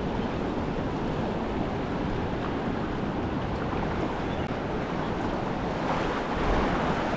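Steady wash of ocean surf breaking on a reef, with wind rumbling on the microphone; it swells a little about six seconds in.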